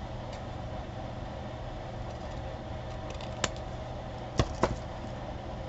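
Steady low background hum, with one sharp tick about three and a half seconds in and two quick taps about a second later.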